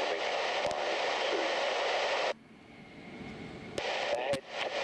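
Airband radio scanner hiss of open-channel static with a faint, unreadable voice beneath it. It cuts off abruptly a little over two seconds in as the squelch closes, and the hiss opens again about a second and a half later.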